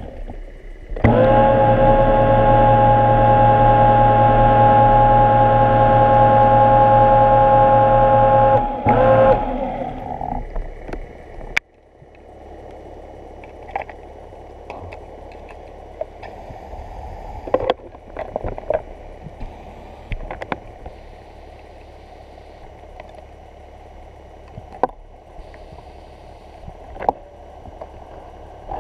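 Underwater scooter (diver propulsion vehicle) motor running with a steady whine underwater. It cuts out about a third of the way in, runs again for a moment, then stops. After that comes quieter water noise with scattered clicks and knocks.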